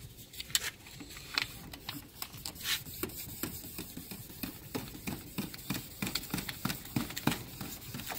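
3000-grit sandpaper rubbed by hand over a polycarbonate headlight lens in short, irregular scratchy strokes. This is the finer sanding stage that smooths out the earlier 1000-grit scratches.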